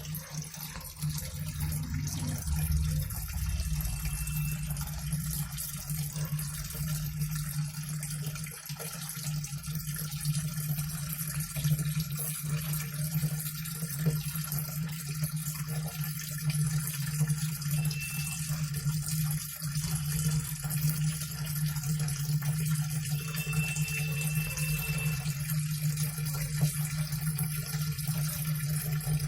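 LG WF-T7519RS top-load washing machine filling with water, a steady stream pouring into the tub over a steady low hum.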